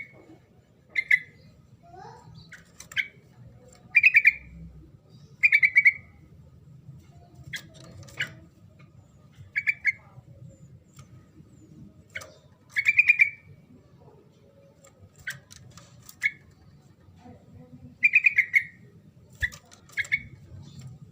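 Yellow-vented bulbul (trucuk) singing short, bubbly chattering phrases, one every second or two. This is the lively song that keepers play to set a quiet bulbul calling back.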